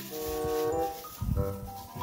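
Background music: a held melodic note, then quieter notes, with a few low knocks about a second in.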